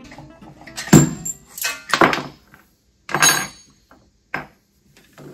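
A heavy metal thunk about a second in, then a few shorter clunks and scrapes: the three-legged vertical pump of a pressure washer coming off the engine crankshaft and being handled.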